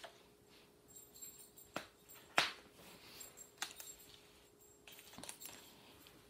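Faint handling of a hardcover picture book being opened flat: light paper rustling with a few small clicks and taps, the sharpest about two and a half seconds in.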